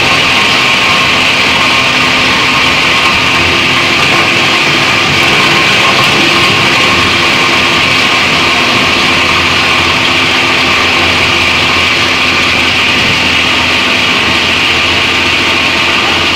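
Heavy-duty plastic scrap grinder running at a steady speed: a loud, even machine noise with a hissing high band over a steady hum.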